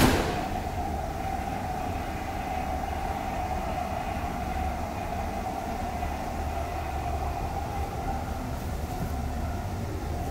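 Steady low drone of a ferry's onboard machinery, with an even mid-pitched hum over it, heard inside the ship's bath room. One sharp knock right at the start.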